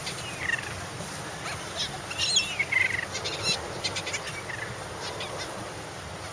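Seagulls calling, a few short squawks that bend in pitch, the loudest cluster about two to three seconds in.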